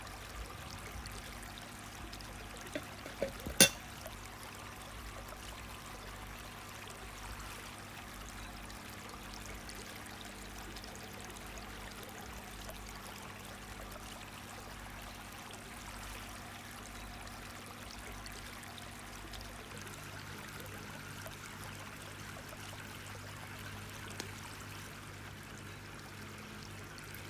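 Steady trickle of running water, with a few sharp clicks a few seconds in, the last and loudest just after three and a half seconds.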